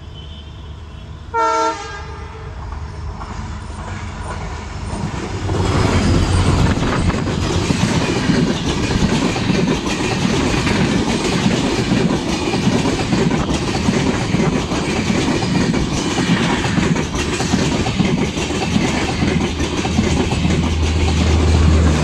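Twin WDP4D diesel locomotives (EMD two-stroke engines) give one short horn blast about a second and a half in. The Shatabdi Express then rushes past at speed: the engines' rumble builds, then the coach wheels keep up a loud clatter over the rail joints, with a low drone that strengthens near the end.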